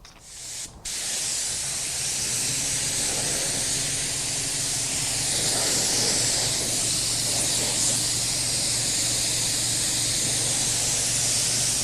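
Air spray gun spraying clear coat: a short trigger burst, then a continuous loud hiss of air and atomised paint, with a steady low hum underneath.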